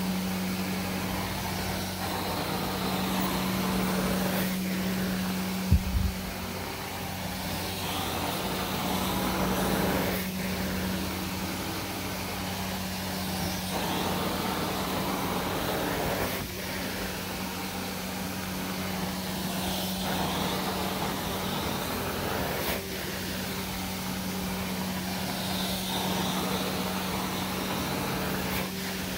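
A carpet-cleaning extractor runs steadily with a constant hum while the wand is worked across the carpet in repeated strokes about every three seconds, sucking up water and urine. There is a brief thump about six seconds in.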